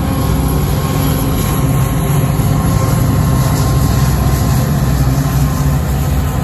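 Norfolk Southern diesel freight locomotives passing, their engines running with a steady, loud low drone.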